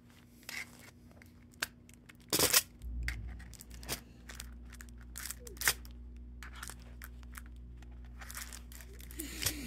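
Packaging being handled and torn open: a run of short crackles, rustles and clicks, the loudest about two and a half seconds in and another near the middle.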